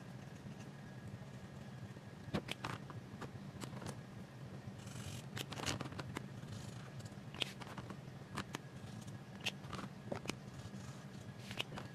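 Light clicks and taps of alcohol markers being handled, picked up, set down and capped, scattered irregularly with a brief scratch of marker on paper, over a steady low hum.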